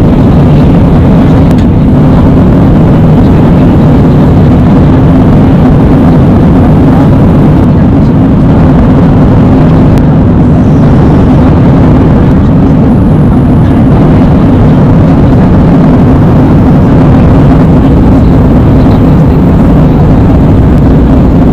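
Steady cabin noise of an Airbus A320 in flight: a loud, even, low rumble of engines and airflow heard from inside the cabin, without change.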